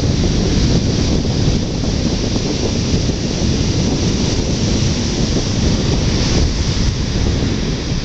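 Ocean surf breaking and washing ashore, with wind buffeting the microphone in a steady deep rumble.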